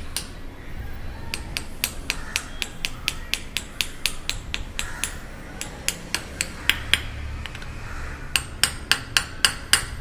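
Light hammer taps on a steel box socket set on the top cap of an air-suspension strut, driving the cap down over the new air spring. A steady run of about three or four sharp taps a second, a pause about seven seconds in, then a quicker run near the end.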